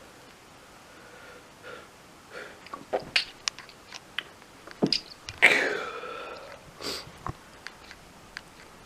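A man sneezing: quick breaths and small sharp snorts lead up to one loud voiced sneeze a little past halfway, followed by a quieter burst about a second later. Part of a sneezing fit that won't stop.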